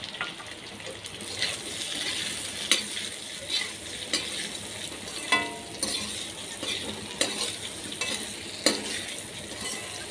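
Potato and cauliflower pieces sizzling in oil in a metal kadhai while a perforated metal ladle stirs them. The ladle scrapes and clinks against the pan every second or so.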